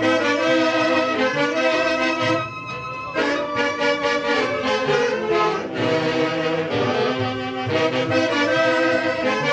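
Tunantada music from a band led by saxophones and clarinets playing the melody in phrases, with short breaks between phrases about two and a half and six seconds in.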